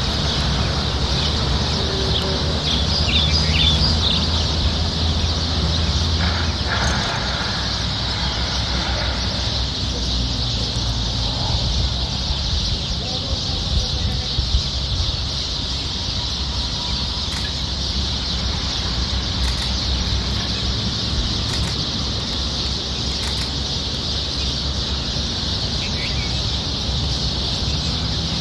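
Outdoor ambience with birds calling now and then over a steady high-pitched hiss and a low hum.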